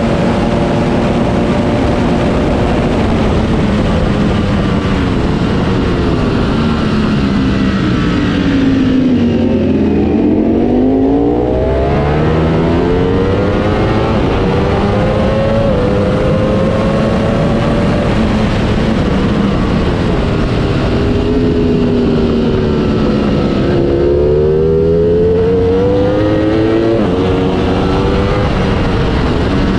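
Ducati Panigale V4 S's V4 engine at racing speed, heard from the bike with a steady rush of wind. The engine note drops twice, about a third and two-thirds of the way in, then climbs again through stepped gear changes.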